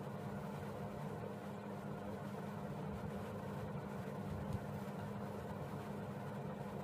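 Steady low mechanical hum of background noise, with one short click about four and a half seconds in.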